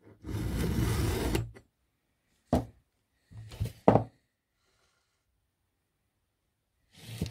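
Round chainsaw file in its metal file guide handled on the saw chain: a scrape lasting about a second and a half at the start, then a few sharp metal clicks and knocks as the guide is lifted off the chain.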